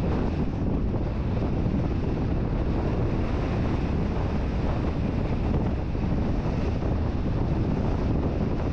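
Wind and road noise on the microphone of a camera riding on a moving car: a steady rushing with a low rumble underneath.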